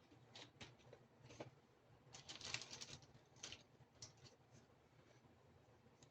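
Small plastic miniature toy kitchen pieces handled, giving faint light clicks and taps, with a quick run of them about two to three seconds in.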